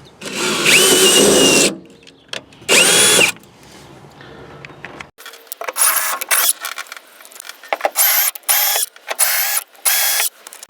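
Electric drill driving an M6 x 1.0 tap to cut threads in unthreaded holes, running in bursts. Each burst starts with a whine rising as the motor spins up, then holds steady: two longer runs early on, then about six short runs in quick succession.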